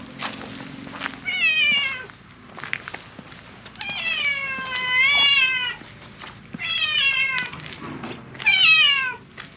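Mackerel tabby cat meowing loudly and insistently, four meows, the second one long and drawn out, each falling in pitch at its end.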